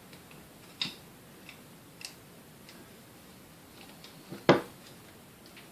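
A few light, separate clicks and taps of a screwdriver and small metal parts against a vintage Sunbeam Mixmaster's metal motor housing during disassembly. The sharpest click comes about four and a half seconds in.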